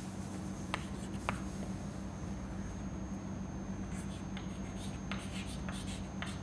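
Chalk writing on a blackboard: two sharp taps of the chalk in the first second and a half, then lighter, scattered strokes, over a steady low room hum.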